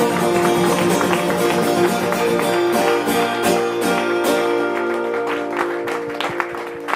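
Instrumental music from the end of a song: short plucked notes over held chords, getting a little softer toward the end.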